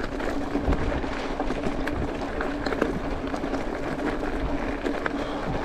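Mountain bike tyres rolling over loose gravel: a steady crunching rumble with many small clicks and rattles from stones and the bike.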